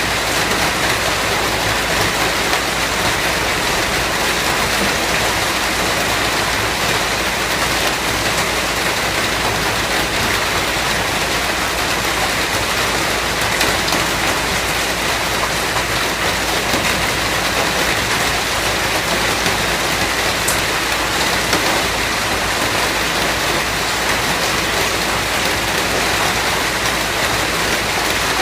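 Steady heavy rain falling on a surface, a dense, even patter.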